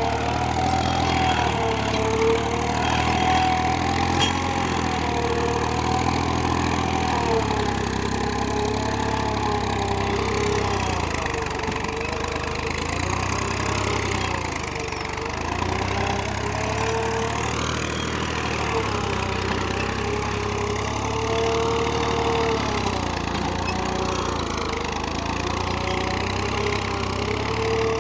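Tractor engine running steadily under load while ploughing, with a higher whine that wavers up and down in pitch.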